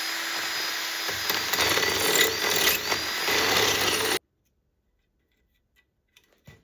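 Handheld power tool running steadily on metal, then stopping abruptly about four seconds in.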